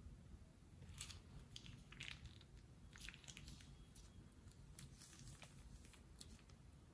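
Faint crinkling and crackling of a plastic piping bag squeezed in the hand as slime is pressed out of it, in scattered short crackles.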